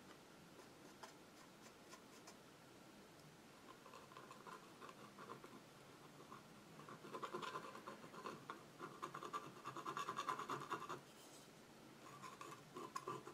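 Metal palette knife scraping acrylic paint onto a canvas panel in short, repeated strokes. It is faint at first, gets louder after about four seconds, and pauses briefly near the end before starting again.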